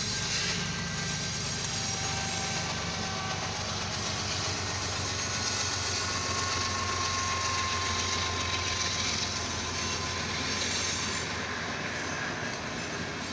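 Union Pacific freight train rolling through a grade crossing, heard from inside a car: a mid-train diesel locomotive passes, then the freight cars follow with a steady rumble and clatter of wheels on rail. A thin wheel squeal rises about halfway through.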